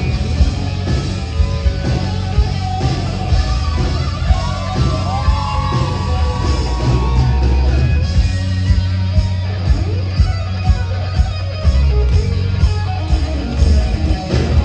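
Hard rock band playing live: electric guitar, bass and drums, with a guitar line bending in pitch around the middle.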